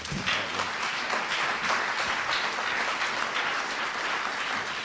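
Audience applauding: many hands clapping together, swelling up at once and holding steady.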